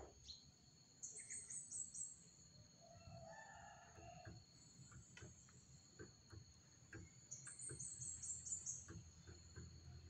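Faint ambience of a steady high insect drone, with a rapid series of high-pitched bird chirps twice, about a second in and again near eight seconds. A faint rooster crows about three to four seconds in, and scattered light ticks come throughout.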